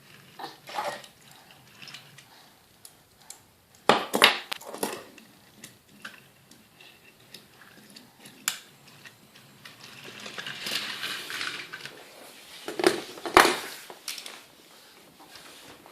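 Toy trains and their packaging being handled: scattered clicks and knocks, a cluster of louder clatters about four seconds in and again near the end, with a couple of seconds of rustling between them.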